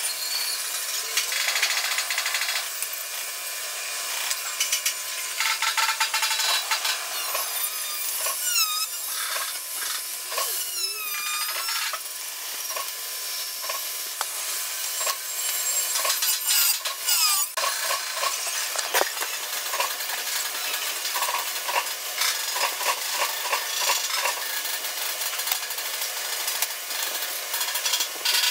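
Fast-forwarded sheet-metal workshop noise, pitched up by the speed-up: power-tool whirring and grinding mixed with many quick metal knocks and clatter, and a few squeaky wavering tones near the middle.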